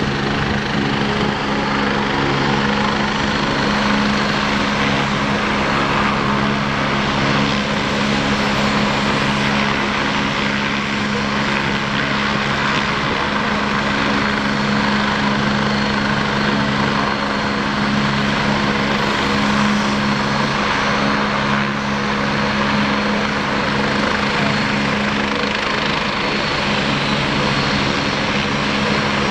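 Air ambulance helicopter running steadily, its turbine whine constant over a fast rotor chop.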